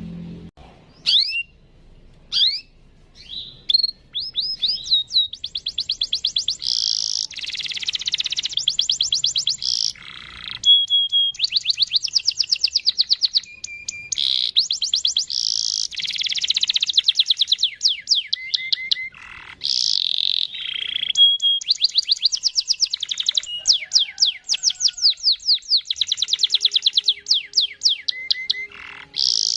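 Domestic canary singing: a few short rising chirps at first, then long, fast rolling trills of rapidly repeated notes, broken by brief pauses.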